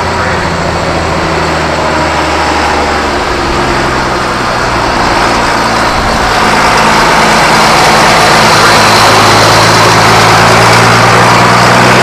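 1985 Case IH 1455 XL tractor's turbocharged six-cylinder diesel engine running steadily as the tractor drives by. Its note steps up in pitch about three and a half seconds in, and it grows louder from about six seconds as the tractor comes close.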